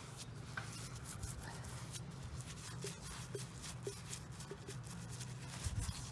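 Brush strokes rubbing hoof oil onto a horse's hoof: many short scratchy strokes over a low steady hum.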